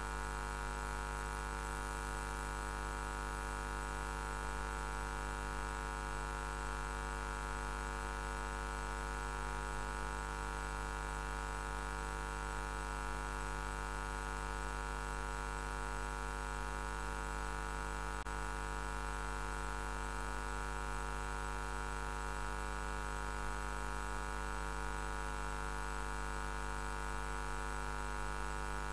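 Steady electrical mains hum with many overtones, unchanging throughout, with one faint click about eighteen seconds in.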